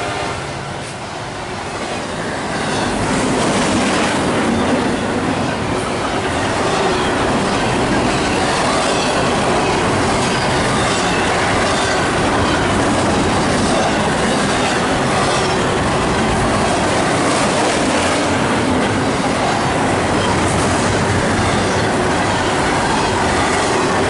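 Double-stack intermodal container train passing at about 70 mph: steel wheels rolling over the rail in a loud, steady rush of noise with repeated clicks from the wheels. The noise dips briefly about a second in, just after the locomotives, then holds steady.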